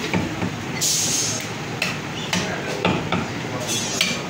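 Meat cleaver chopping through a goat leg, meat and bone, on a wooden tree-trunk chopping block: a series of chops, roughly one every half second to second.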